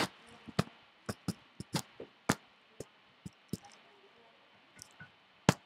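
Wooden spoon stirring diced vegetables in a stainless steel pan, knocking against the pan in a run of sharp, irregular clicks. There is a quieter gap before a last knock near the end.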